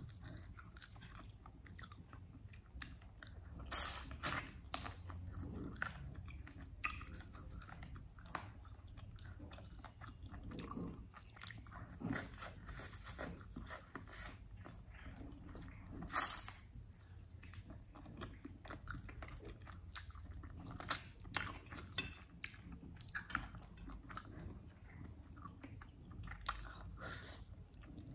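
A person chewing and biting into chicken wings, with irregular mouth noises and a few sharper bites about four, sixteen and twenty-one seconds in.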